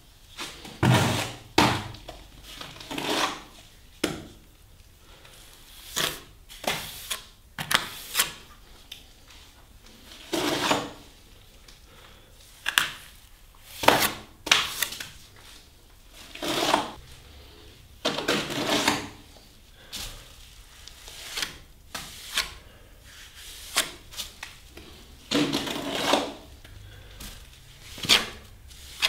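Steel hand trowel applying wet plaster to a door reveal overhead, scraping and slapping in irregular strokes roughly every second or two, some with a sharp click. This is the first rough coat, only getting material in, not yet smoothed.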